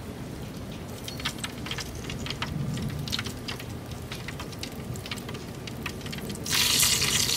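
Open wood fire crackling with short sharp pops under a rotisserie roast. About six and a half seconds in, a louder steady sizzling hiss sets in from the fire.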